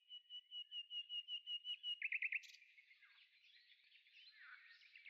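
A songbird singing faintly: a steady run of high, evenly repeated notes, about seven a second, then a few quicker, lower notes and a buzzy, rattling phrase.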